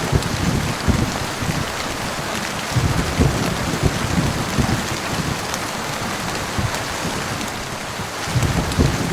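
Heavy rain falling steadily, with low rumbles of thunder at the start, in the middle, and again near the end.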